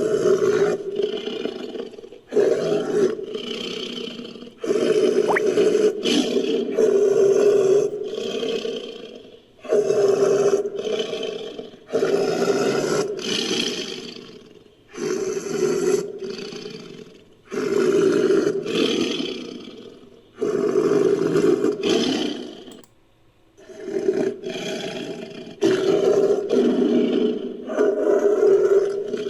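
Designed sabre-toothed big-cat roars built from smilodon sound effects. A series of about a dozen roars, each a second or two long, starts abruptly and tails off, with short gaps between them.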